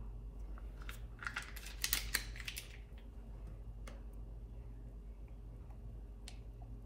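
Plastic pot of double cream being opened by hand: a quick cluster of crackles and clicks as the seal comes off, then a few faint single clicks as the pot is handled for pouring.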